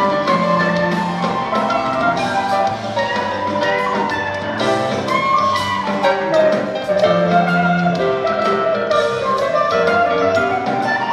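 Live rock band playing, with electric guitars, keyboards, bass and drums, heard as an audience recording on a small camcorder.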